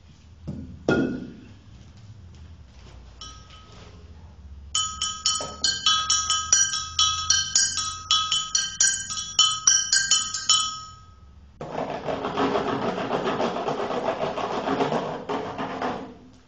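Pitched percussion struck in quick succession, each strike leaving high ringing notes, for about six seconds from around the five-second mark. About a second after the strikes stop, a dense rattling, rustling noise runs for about four seconds.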